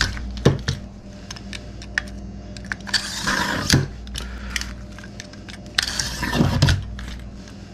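A utility knife blade scraping down the groove of a chainsaw bar, in two scrapes about three and six seconds in, clearing out sawdust and oil. Scattered light metallic clicks from handling the bar and tools come in between.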